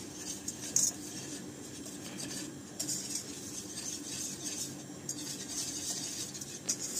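A utensil stirring and scraping flour and oil around a stainless steel pot, with irregular metallic scrapes every second or two: flour being toasted in oil for Turkish flour halva (un helvası).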